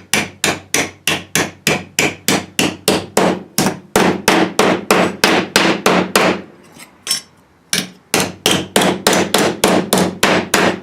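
Hammer blows flattening a split piece of copper pipe on a steel block, a fast, even run of about four strikes a second. The strikes pause for about a second and a half after the middle, then resume.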